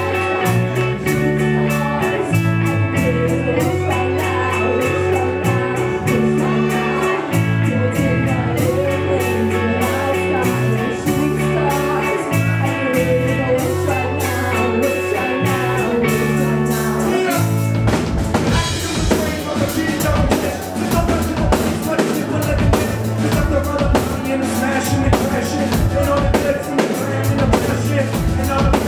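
Live band music from keyboards, electric guitars, bass and drum kit, with vocalists singing into microphones. Sustained keyboard and bass chords carry the first part, and the drums come in heavier and busier about two-thirds of the way in.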